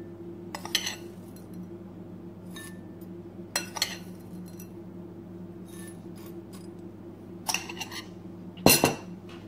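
A metal spoon clinking and tapping against glass tumblers while crushed crackers are spooned into them: scattered sharp clinks, loudest near the end. A steady low hum runs underneath.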